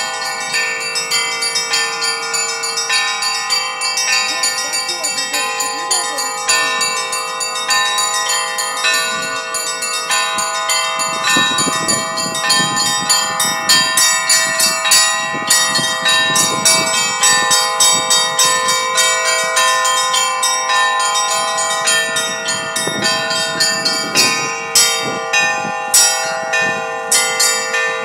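Russian Orthodox church bells ringing a peal: many bells struck in a fast, continuous pattern over a lingering hum, the strikes standing out more sharply near the end.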